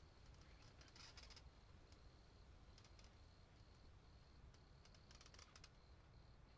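Near silence with faint insects: a thin, steady high trill that breaks off now and then, and short raspy clusters of ticks about a second in, around three seconds, and again around five seconds.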